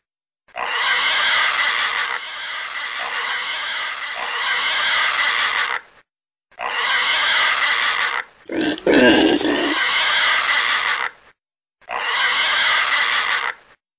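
Domestic pig grunting in bursts lasting several seconds, separated by short silences, with one louder, deeper grunt about eight and a half seconds in.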